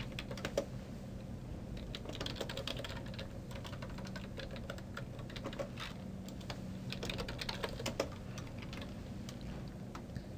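Computer keyboard typing: irregular spurts of key clicks with short pauses between them, over a faint steady low hum.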